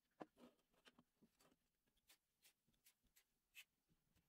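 Faint, scattered clicks and taps of a disassembled ratchet wrench head being handled with gloved hands and moved into a tray.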